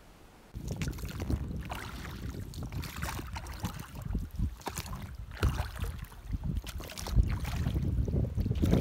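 Gusty wind rumbling on the microphone in a small inflatable dinghy on choppy water, setting in suddenly about half a second in and staying uneven, with irregular knocks and splashes.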